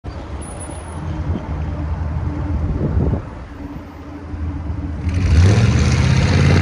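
6.0-litre V8 with a straight-pipe exhaust, muffler removed, running unmuffled, then revved about five seconds in, its pitch rising and the sound growing louder.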